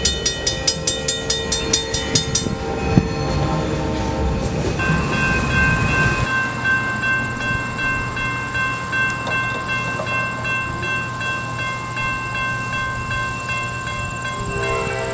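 Train passing a grade crossing: the crossing bell rings rapidly, about four strokes a second, for the first couple of seconds, then a long steady high ringing tone sits over the train's low steady rumble.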